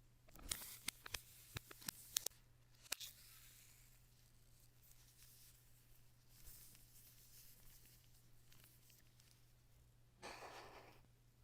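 Faint handling sounds of a tablet and its packaging or accessories: a quick run of light clicks and taps over the first three seconds, soft rustling, and a short rustle about ten seconds in, over a low steady hum.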